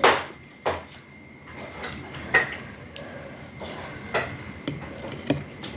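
Eating utensils clinking and tapping against a bowl of noodle soup, about eight separate sharp clinks at irregular intervals.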